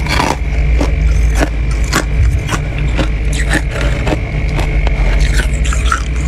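Freezer frost being scraped and crunched by hand: a run of short, sharp scraping crunches, several a second at times, over a steady low hum.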